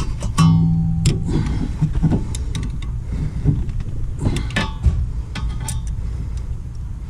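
Metal clicks, taps and scrapes of a wrench turning a rear disc-brake caliper piston, which screws back into its bore as it spins. There is a short squeak about half a second in.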